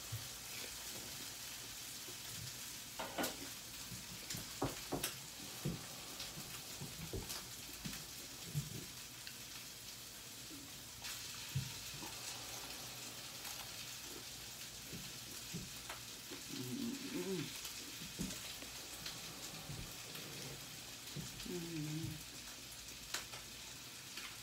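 Hard corn taco shell being crunched and chewed, with scattered crisp cracks over a steady hiss. Two brief hums from the eater come in the second half.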